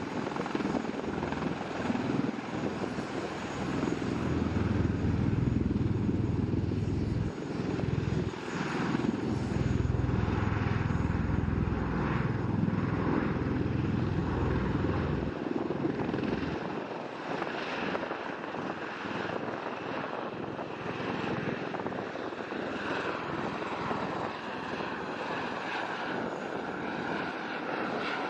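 V-22 Osprey tiltrotor's twin turboshaft engines and proprotors running. A heavy, deep rumble builds in the first few seconds. A little past halfway the rumble drops away, leaving a lighter, higher rotor and engine noise.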